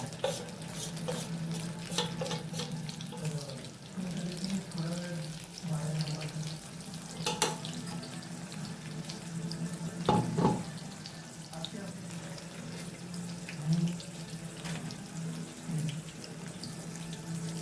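Corn pakoras deep-frying in hot oil, a steady sizzle over a steady low hum, with a few short knocks from a utensil against the pan.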